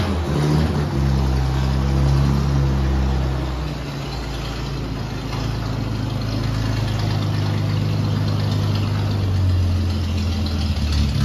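1948 Dodge Power Wagon's flathead straight-six running just after a cold start. The idle is steady, shifting in speed about four seconds in.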